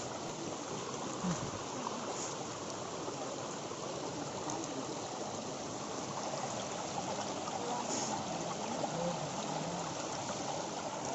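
Steady rush of flowing water from a forest stream and waterfall.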